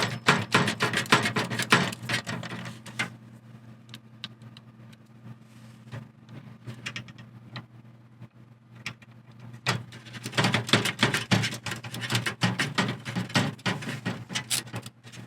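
Ratcheting screwdriver clicking in quick runs while driving motherboard screws into a PC case, over a steady low hum from a running heater.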